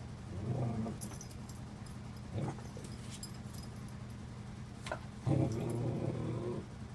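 A dog vocalizing: a short pitched sound about half a second in, a brief one a couple of seconds later, and a longer one lasting about a second near the end, over a steady low hum.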